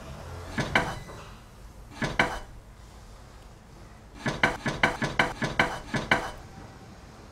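Sharp, ringing, metallic-sounding clinks. There are two about a second in and two more about two seconds in, then a quick run of about ten at roughly five a second, near the end.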